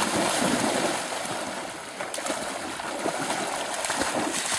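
Two Labrador retrievers splashing and paddling through shallow lake water. The splashing is heaviest in the first second as they lunge in, then settles into lighter sloshing.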